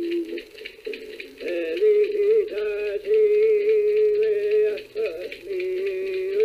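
A man singing a Passamaquoddy song in long held notes that waver slightly in pitch, with short breaks about a second in and again about five seconds in.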